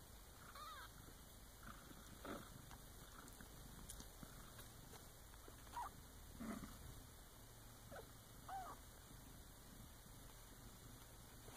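Young Bengal kittens mewing faintly: several short, high calls that arch up and down in pitch, spread out at irregular intervals.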